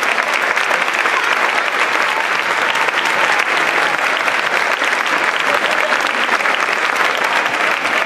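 Audience applauding: steady clapping from a large crowd.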